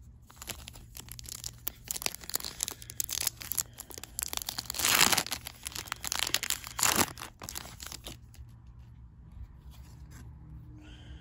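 Foil Yu-Gi-Oh! booster pack wrappers crinkling in the hands and being torn open. The loudest tears come about five seconds in and again around seven seconds.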